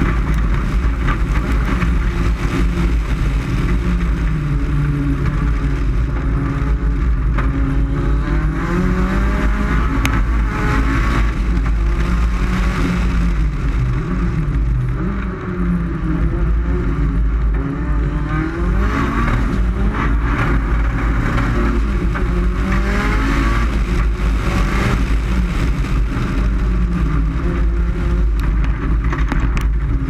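Lancia Delta Integrale's turbocharged 2.0-litre four-cylinder engine under hard acceleration, its pitch climbing and dropping again and again through gear changes and corners, with a constant deep rumble underneath.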